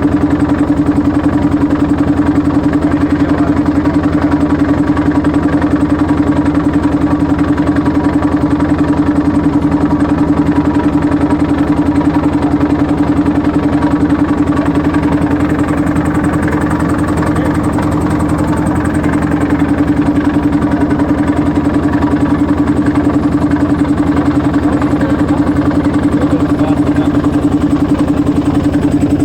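Boat engine running at a steady speed, a loud, even drone that dips slightly about two-thirds of the way through.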